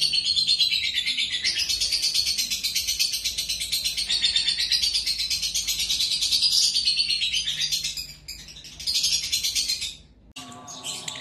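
Lovebird chattering in a long, rapid, high-pitched stream of notes, with a short break about eight seconds in; it stops suddenly just after ten seconds, when a different bird recording begins.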